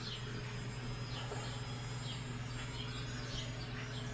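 The 400-watt spindle motor of a Genmitsu PROVerXL 4030 V2 CNC router running with no load, a steady, fairly quiet hum. Bird chirps come through in the background.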